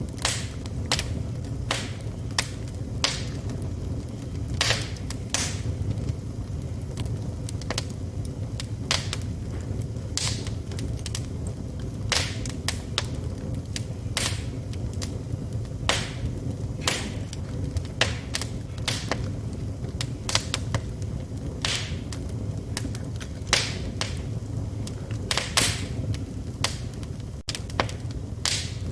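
Wood fire burning in a fireplace: a steady low rumble with sharp crackles and pops at irregular intervals, about one or two a second.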